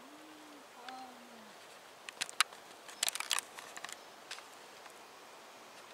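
A short low buzz twice in the first second and a half, then a cluster of sharp clicks and taps between about two and four seconds in, the loudest about two and a half seconds in.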